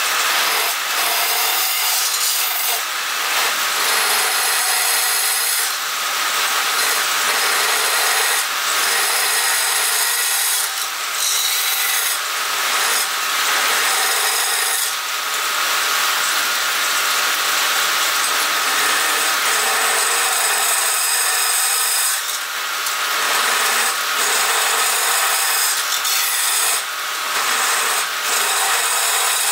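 A turning tool scraping and cutting inside a spinning wooden cylinder on a wood lathe as it is hollowed out: a steady hissing, scraping cut that breaks off briefly several times as the tool comes away from the wood.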